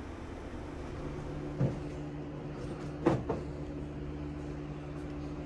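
A steady low hum with two brief knocks about a second and a half apart, the second one louder.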